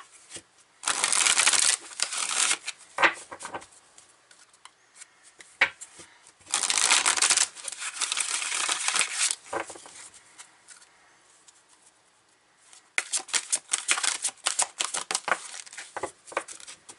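A deck of oracle cards being shuffled by hand: several bursts of rapid flicking and riffling, each one to three seconds long, with light clicks and taps between them.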